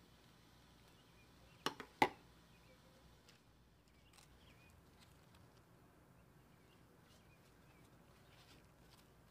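Two or three sharp clicks close together about two seconds in, from handling food on a wooden cutting board. Otherwise faint room tone with faint bird chirps in the background.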